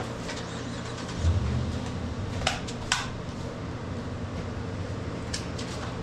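Steady low mechanical hum, with a brief low thump about a second in and a few sharp clicks.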